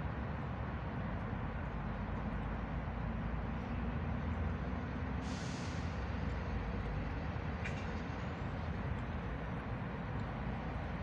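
Steady low outdoor rumble, with a short hiss a little after five seconds and a single click just before eight seconds.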